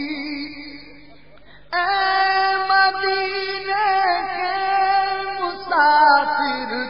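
A man's voice singing an Urdu naat in long, drawn-out held notes. It fades down about a second in, comes back strongly just before two seconds in, and slides in pitch near the end.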